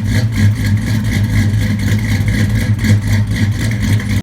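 An engine running steadily with a regular rhythmic pulse. It cuts off abruptly at the end.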